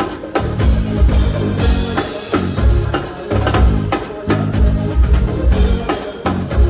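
A live band playing an instrumental groove with drum kit and a heavy, pulsing bass line, the kick and snare keeping a steady beat.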